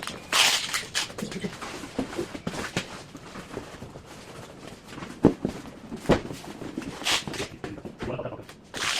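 Packing and handling noises: rustling with a few sharp knocks, the loudest a little past the middle.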